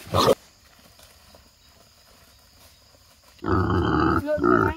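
Pig squealing: a short sharp squeal at the very start, then a longer, louder, wavering squeal lasting over a second near the end.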